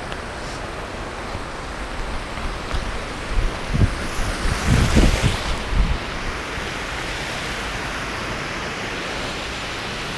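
Water rushing over a low river weir, a steady hiss. Wind buffets the microphone with low rumbling gusts for a few seconds from about three and a half seconds in.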